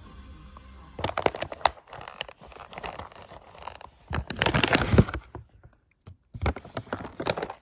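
Irregular crinkling and scraping handling noises with sharp clicks, starting about a second in, with the densest stretch about four to five seconds in.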